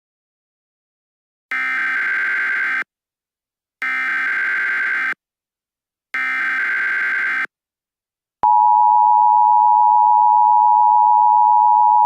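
Emergency Alert System tones: three buzzy SAME header data bursts, each about a second long with a second's gap between them, then about eight seconds in the steady two-tone EAS attention signal starts and holds, louder than the bursts.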